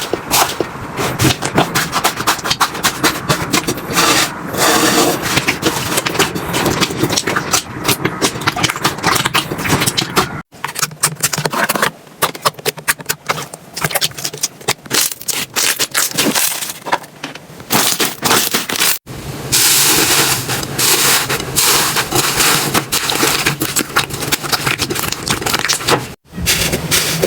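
Slime being squeezed and pressed by hand, with dense crackling and popping. The sound cuts off briefly three times as one slime clip gives way to the next.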